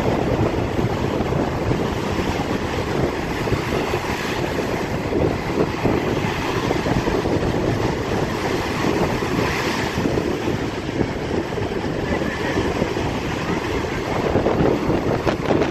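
Strong wind buffeting the microphone over the steady rush of lake waves crashing against the breakwater.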